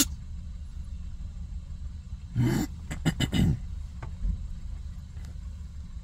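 A kitten sneezing several times in quick succession a little over two seconds in, over the steady low rumble of a car's engine and road noise.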